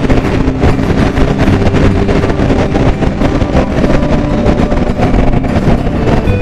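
Motorcycle riding along at speed: a steady engine drone under heavy wind rush buffeting the microphone.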